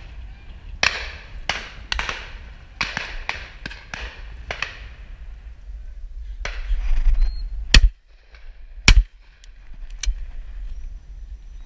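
Shotgun shots in quick succession during the first five seconds, quieter and each trailing off in an echo, then two loud close shots about a second apart from the shotgun at the peg.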